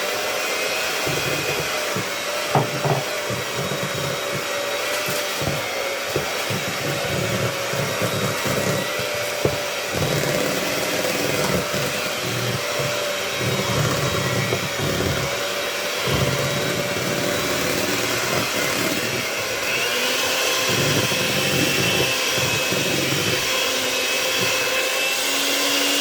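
Electric mixer running steadily, beating cream cheese and butter frosting in a bowl, with a motor whine over an uneven churning. The whine rises slightly in pitch about twenty seconds in.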